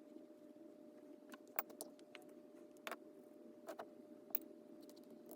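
Scattered light clicks and taps of painting supplies being handled, brush and ink pots knocking against the palette, at uneven intervals over a steady faint hum.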